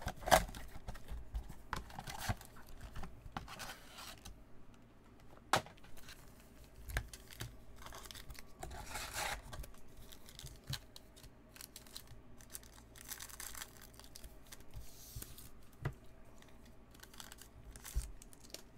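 Handling sounds of a cardboard card box and plastic-wrapped baseball card packs: rustling and crinkling wrappers, a pack being torn open, and scattered light taps and clicks.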